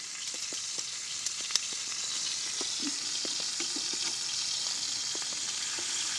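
Thick ribeye steak sizzling steadily in hot oil in a frying pan, with a few small pops.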